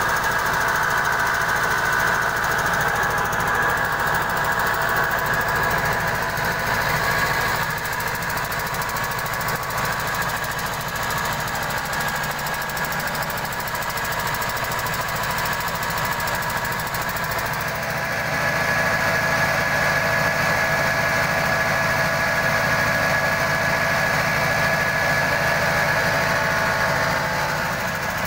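Red single-cylinder diesel engine driving a mobile rice-milling machine, running steadily with a high whine over the engine's chug. It gets a little louder about two-thirds of the way through.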